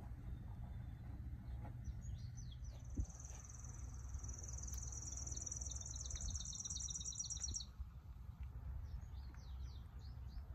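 A small bird singing a long, very high, rapid trill of about five seconds, with short high chirps just before and after it, over a steady low rumble.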